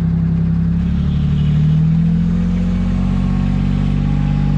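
Kubota side-by-side's engine running as it drives along, its pitch rising a little about a second in and then holding steady.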